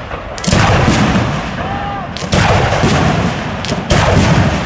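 Aerial firework shells bursting in a display: a string of loud booms, several coming close together, each trailing off in a long rumbling echo.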